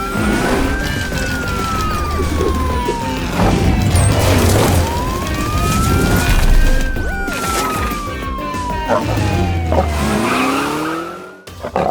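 Police car siren wailing in two slow sweeps, each rising quickly and then falling for several seconds, over lively background music. It drops away shortly before the end.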